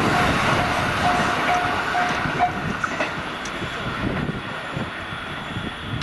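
Electric commuter train's wheels running on the rails and fading as it pulls away. Over it a level crossing bell rings about twice a second, then stops about two and a half seconds in.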